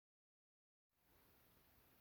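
Near silence: dead digital silence, then a very faint hiss of background noise from about halfway through.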